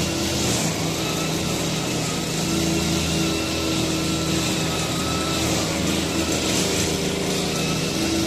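Two backpack brush cutters running steadily, their engines wavering slightly in pitch as the trimmer heads cut grass.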